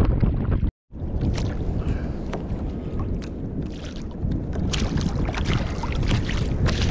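Wind buffeting the action camera's microphone over water slapping against a sit-on-top kayak's hull, with scattered short knocks and splashes. The sound cuts out for a moment a little under a second in.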